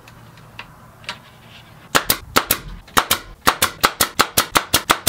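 A 23-gauge pneumatic pin nailer is fired in quick succession into the corner of a mitered cedar frame, shooting pins to hold the glue-up. It makes a rapid run of sharp pops, about five a second, starting about two seconds in, with a few faint clicks before that.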